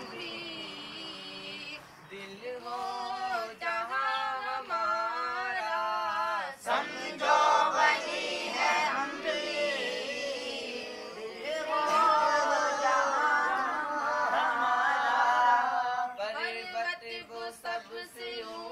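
Young voices singing together.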